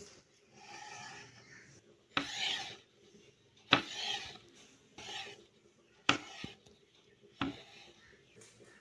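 Knife cutting a rolled sheet of dough into strips on a wooden board: a few short scraping strokes and three sharp taps of the blade on the board.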